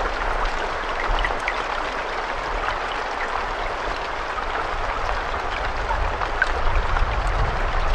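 Steady rain, a dense hiss of falling water with many small drops ticking through it. A low rumble grows under it near the end.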